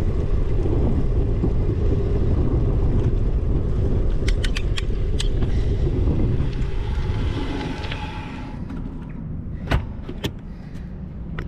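Wind buffeting the microphone of a moving bicycle, dropping away about eight seconds in as the bike slows to a stop. A few sharp clicks come in a short cluster around the middle and twice more near the end.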